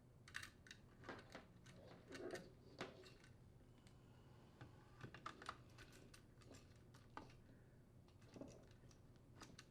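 Faint, scattered light clicks and soft rustles of a power cord's wires being handled and fed through a garbage disposer's strain relief.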